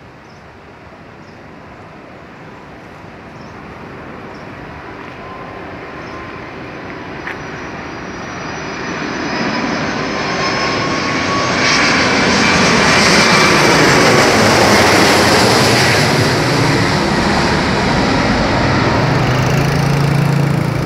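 Twin-engine jet airliner on final approach passing low overhead to land: the engine noise builds steadily to its loudest a little past halfway, with a whine over a rumble, then starts to fade.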